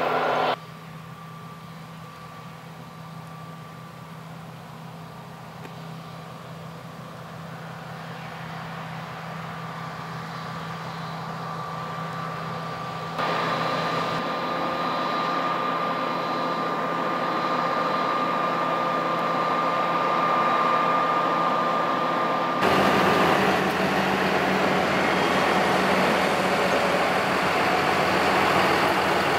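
John Deere combine harvester running steadily with a steady whine, getting louder over the first dozen seconds as it comes closer. The sound changes abruptly twice, about 13 and 23 seconds in, each time to a louder, fuller running noise.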